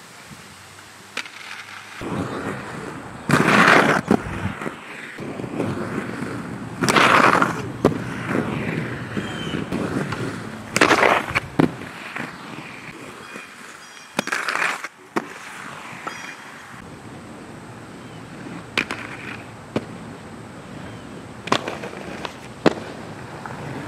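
Aggressive inline skates rolling on concrete, with four loud scraping grinds about four seconds apart and, later, several sharp clacks of skates striking the ground or ledges.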